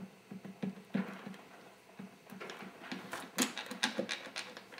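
Light metallic clicks and knocks as the loosened aluminium clutch cover of a Yamaha YZF600 engine is wiggled loose on its cap head bolts, a few at first and a quicker run of them in the second half.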